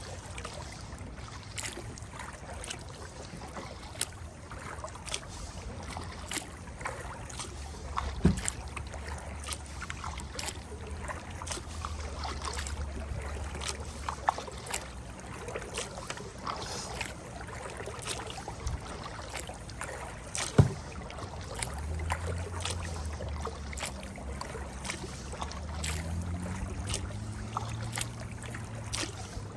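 Kayak being paddled on a river: running water with many small clicks and knocks, and two sharper knocks about eight and twenty seconds in. A low hum comes and goes in the background and rises in pitch near the end.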